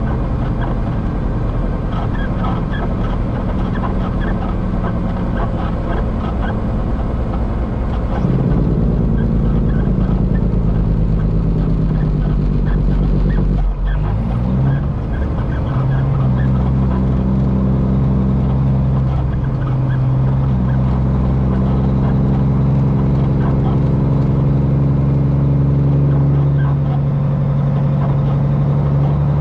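Straight-piped Cummins diesel of a Peterbilt semi running under the load of a full liquid tanker. The engine note sags over several seconds, breaks off briefly about 14 seconds in, then climbs and holds steady.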